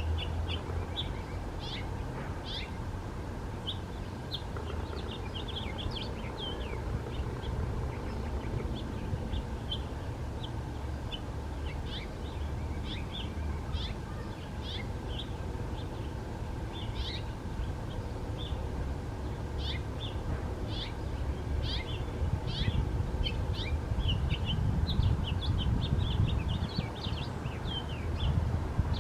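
Small birds chirping in short, high notes, scattered through the whole stretch, over a steady low rumble that grows louder in the last few seconds.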